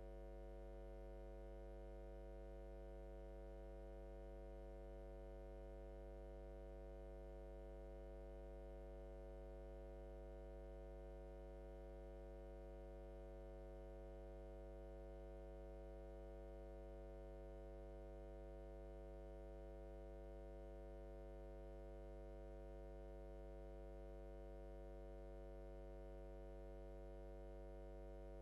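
Faint, steady electrical mains hum on the audio line: a low hum with a ladder of higher overtones, unchanging throughout.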